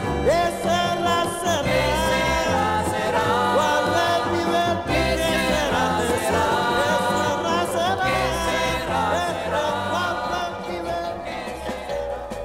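Music: a song with a group of voices singing over a backing band, growing quieter near the end.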